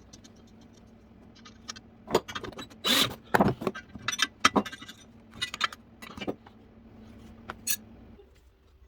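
Scattered clicks, knocks and scrapes of small metal workshop parts being handled, over a faint steady hum that stops near the end.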